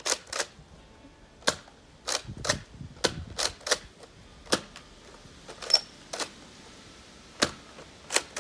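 Toy Nerf dart blaster being primed and fired again and again: sharp plastic clacks of the priming slide and spring plunger, a dozen or so at uneven spacing, some single and some in quick pairs.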